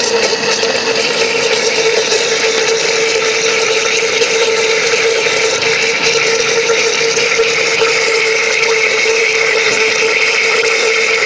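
Electric blender with a glass jug running steadily, blending a drink: one constant motor whine that holds its pitch throughout.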